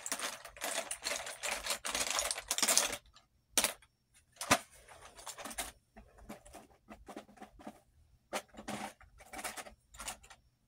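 Plastic makeup items clattering and rattling as they are rummaged through in a plastic basket and drawers: dense rattling for the first three seconds, then scattered clicks, with one sharp knock about halfway through.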